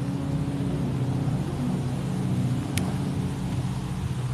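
A motor vehicle engine running steadily, a low hum with a short sharp tick about three seconds in.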